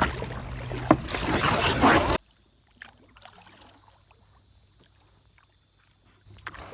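Kayak paddling on a river: loud water noise from the paddle strokes with a sharp knock about a second in. About two seconds in it cuts off abruptly to a quiet stretch with faint ticks.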